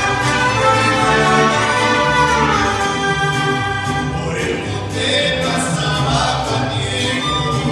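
Mariachi band playing: violins, trumpet and guitarrón, with the musicians singing from about halfway through.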